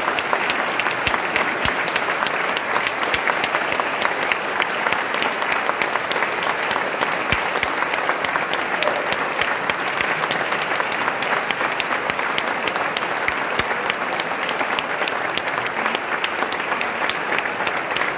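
Audience applauding: many hands clapping in a dense, even patter at a steady level.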